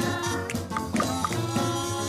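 Instrumental music with sustained notes over a steady, regular beat.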